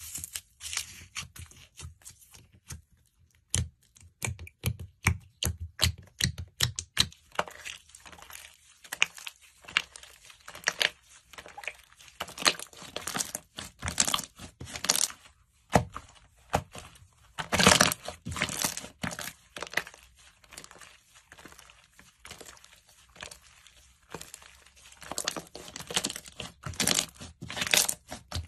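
Hands squeezing and kneading thick slime with red textured pieces mixed in. It gives a run of irregular sticky crackles and pops, louder in clusters.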